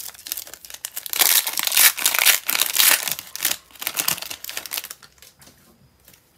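Foil wrapper of an Upper Deck hockey card pack being torn open and crinkled by hand, a dense crackle that dies down about five seconds in.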